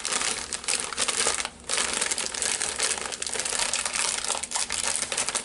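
Plastic crisp bag of potato hoops crinkling and crackling as it is handled, with a short pause about a second and a half in.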